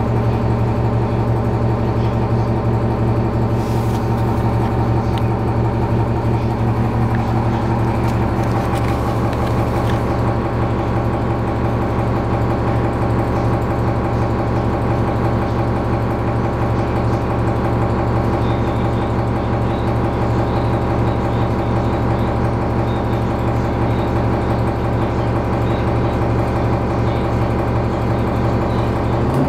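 Cummins ISC diesel engine of a New Flyer D40LF transit bus running steadily, heard from inside the passenger cabin. Its pitch rises slightly about seven seconds in, then holds steady.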